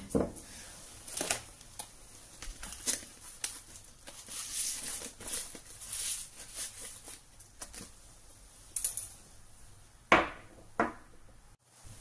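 A bag of coffee beans being handled and opened: irregular crinkling and rustling of the packaging, thicker for a few seconds in the middle, with two louder sharp rustles about ten seconds in.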